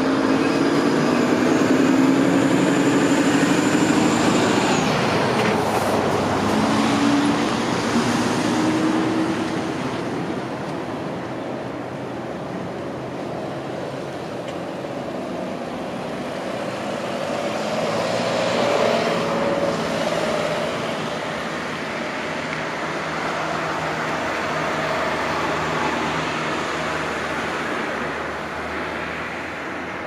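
Passing vehicles rumbling by, with a low hum and a faint high whine that fade over the first several seconds. Another vehicle swells past about 19 seconds in, and a quieter rumble continues after it.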